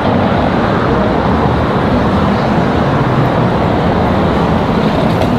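Steady street traffic noise: cars passing on a busy city boulevard, an even, unbroken wash of sound.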